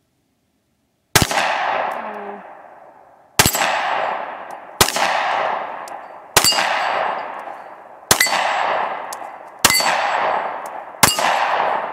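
Seven shots from a Smith & Wesson M&P Shield 9mm pistol, starting about a second in and spaced about a second and a half apart. Each shot is followed by the clang of a hit steel target, ringing on and dying away over a second or two.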